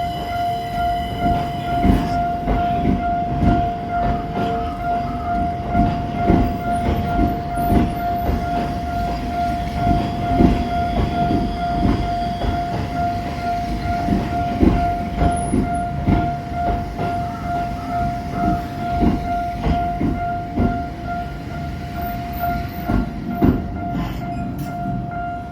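Level crossing warning bell ringing steadily with a repeating tone while a Tokyo Metro Ginza Line train crosses, its wheels knocking irregularly over the rail joints.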